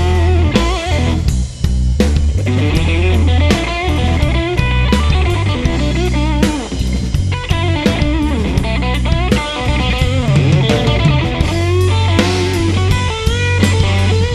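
Live blues band playing an instrumental passage: an electric guitar solo with bent, wavering notes over bass guitar and drum kit.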